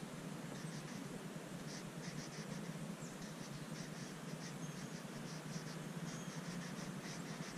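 Conté-style pastel crayon scratching across sketchbook paper in quick, repeated short strokes, over a low steady hum.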